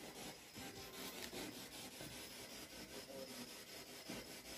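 Faint rustling and crackling with small scattered clicks, from a handheld camera being moved and handled during a quiet pause.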